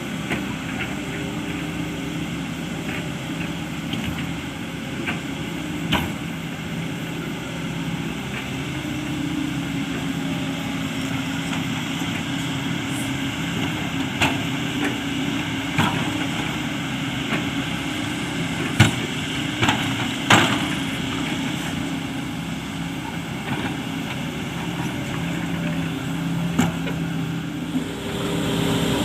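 A Sany hydraulic excavator's diesel engine running steadily, with several sharp knocks and scrapes as the bucket works against hard rock.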